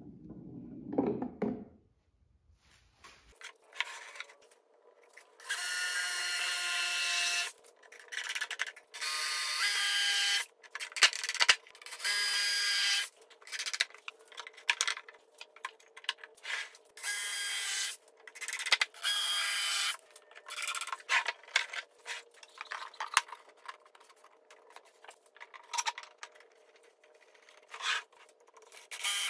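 Cordless drill driving screws into plywood in a series of short runs of one to two seconds each, its motor whining through each run, with light knocks of handling in between.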